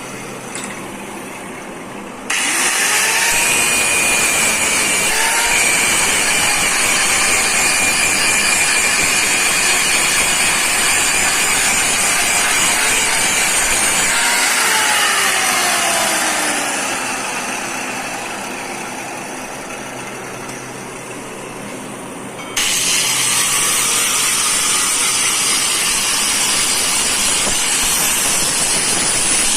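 A power tool starts suddenly about two seconds in and runs loudly with a hissing, high-reaching noise. It winds down with a falling pitch about halfway through, then starts again near the three-quarter mark.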